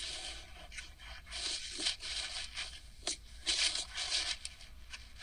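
Irregular rustling and scraping noises close to the microphone, in uneven bursts, the loudest clusters about a second and a half in and again near four seconds in.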